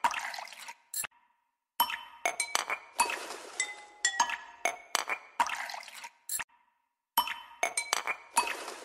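Background music made of plinking, glassy chime-like notes in a quick rhythm, stopping dead for a moment about a second in and again about six and a half seconds in before picking up again.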